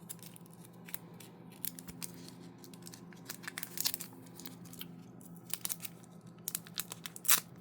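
Sports cards and their plastic and paper packaging being handled: scattered light clicks and crinkles as a card is taken out, with a louder crinkle near the end.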